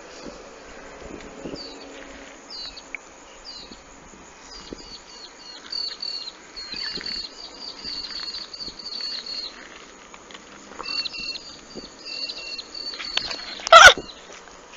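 A small bird chirping in quick runs of short, high, falling notes, several a second, over a faint rural background. Near the end there is one loud knock.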